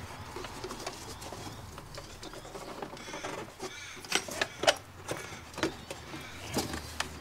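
Scattered hard plastic clicks and knocks as a car airbox is pushed and worked into place by hand, the sharpest knock about four and a half seconds in.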